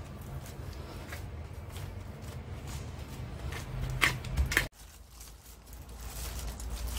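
Gloved hands rubbing and pressing soft brown modelling paste over a foam base, with a few louder scrapes about four seconds in before the sound drops off abruptly, over a steady low hum.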